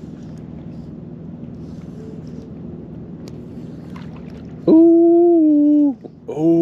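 A person's voice giving two long held notes, a drawn-out call or hum: the first begins with a quick upward slide and holds steady for about a second, and the second, a little lower with a slight bend, comes just before the end. Beneath them runs a steady low drone.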